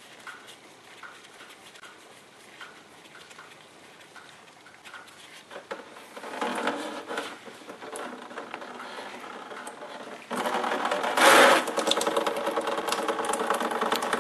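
Screwdriver turning a radiator's plastic drain plug, with faint regular clicks. About ten seconds in, antifreeze suddenly gushes out of the opened drain and splashes steadily into a drain pan.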